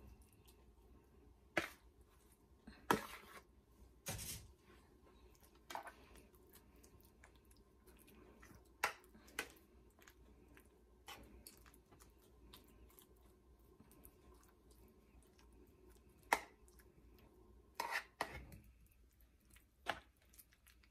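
Metal spoon scraping and knocking against a mixing bowl and a metal baking pan while a soft bread mixture is spooned out and spread: scattered sharp clicks and short scrapes, irregularly spaced.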